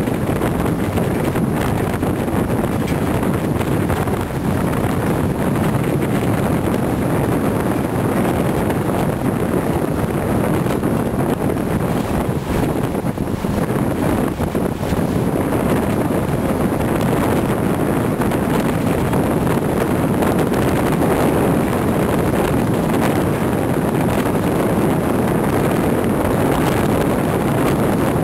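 Steady drone of a Scania heavy-haulage truck and its multi-axle low-loader moving at road speed, engine and tyre noise blended together, with wind rushing over the microphone.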